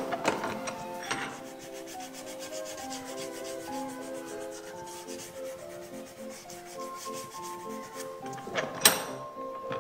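A small carved wooden piece clamped in a bench vise being sanded by hand in short rubbing strokes, with a sharper scrape about a second in and a louder one near the end. Soft background music with held notes plays underneath.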